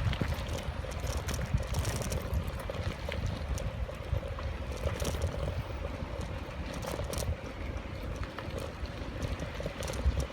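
Wind rumbling on the microphone of a camera riding on a folding bicycle, with scattered rattling clicks from the bike and mount over the road.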